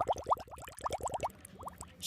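Bubbling sound effect: a rapid string of short, rising bloops, several a second, like underwater bubbles.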